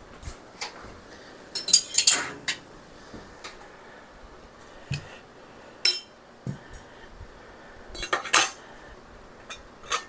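Scattered clinks and knocks of canning gear: metal tongs and an empty glass mason jar set down on the counter, then a stainless canning funnel set on the jar's mouth. Short, sharp clatters come about four times, the biggest near two seconds in and again past eight seconds.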